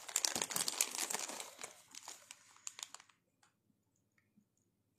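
Clear plastic zip-lock bags crinkling and crackling as they are handled, for about three seconds before it stops.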